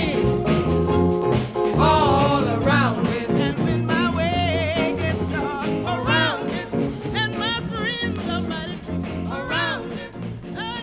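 1976 gospel funk 45 record playing: a vocalist sings over a band with a pulsing bass line and drums, the music growing quieter toward the end.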